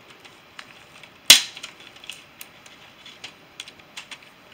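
Plastic Guess Who character tiles being flipped down on the game board: one sharp, loud clack about a second in, then a scattering of lighter clicks.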